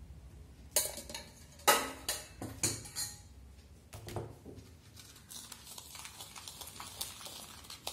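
Small stainless-steel tea strainer knocked against a glass bowl: about five sharp clinks with a short ring over roughly two seconds, starting near the first second. A few softer clatters follow as the strainer and utensils are set down.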